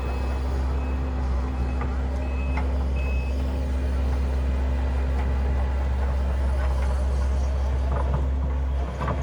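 Excavator's diesel engine running steadily under load while its travel alarm beeps regularly for the first few seconds, then stops.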